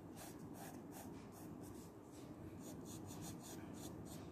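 Graphite pencil scratching on paper in short, quick drawing strokes, about three or four a second, with a brief pause about two seconds in. Faint.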